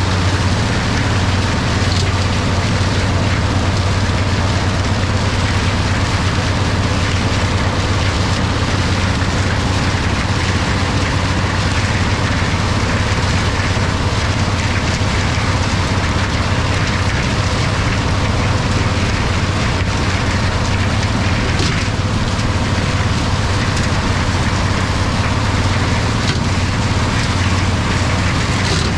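International 1256 tractor's six-cylinder diesel running steadily under load, pulling an International stalk chopper whose flails chop standing corn stalks. A low, even engine drone sits under a steady rushing, chattering noise from the chopper.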